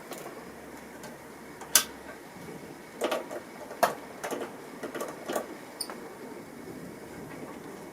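Small repair tools clicking and tapping against a phone's internal parts during disassembly: a handful of sharp clicks, the first about two seconds in and the rest bunched near the middle, over a low steady hiss.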